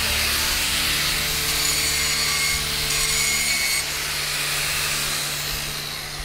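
Electric angle grinder with an abrasive disc grinding the steel of a tank road wheel, a steady motor whine under a loud harsh scraping hiss. The scraping eases a little about four seconds in.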